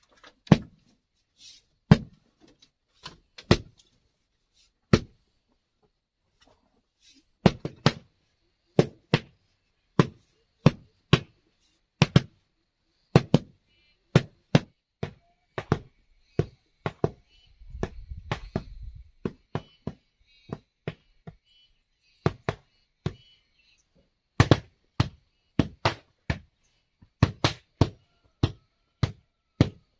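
Repeated sharp knocks of a hand tool striking bamboo or wood, irregularly spaced, some single and some in quick runs of two or three, with short pauses between; a brief low rumble about two-thirds of the way through.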